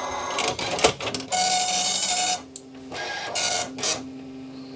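Commodore MPS 1500C dot matrix printer printing. The print head rasps across in passes with short pauses between, and the carriage and paper-feed motor hum steadily near the end.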